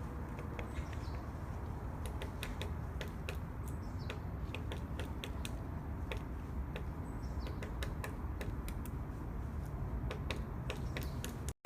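Woodpecker pecking at wood: irregular sharp taps, a few to several a second, with a few faint high falling calls over a low background hiss.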